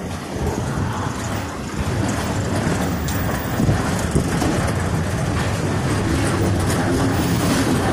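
Freight cars of a CSX train, covered steel-coil cars, rolling past close by: a steady noise of wheels running on the rails.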